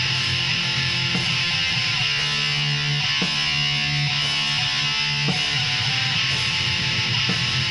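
Black metal music: a constant wall of distorted guitar playing sustained chords that change every second or two.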